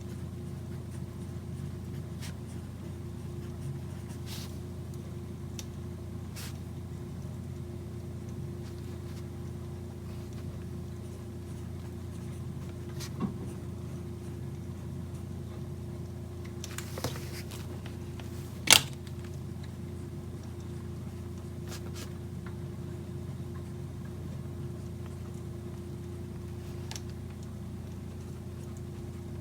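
Steady low room hum with a few scattered small clicks and a brief rustle of desk handling, and one sharper click a little past halfway.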